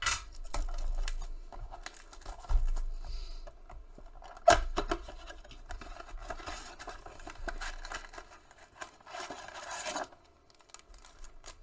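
Cardboard blaster box of trading-card packs being opened by hand: clicks, scraping and rustling of the card stock, with one sharp snap about four and a half seconds in. Near the end the wrapped packs slide out of the box with a louder rustle.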